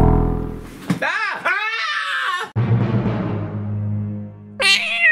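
Channel intro sting: swooping, warbling electronic sounds, then a low held note, ending in a short high wavering cry.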